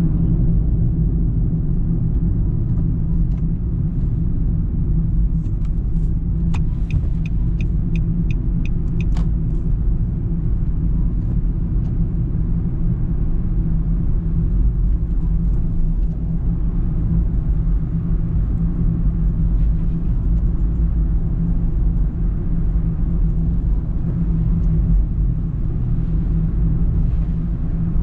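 Steady low rumble of a car's engine and tyres on a wet expressway, heard from inside the cabin. About six seconds in, a short run of about nine evenly spaced high ticks, roughly three a second.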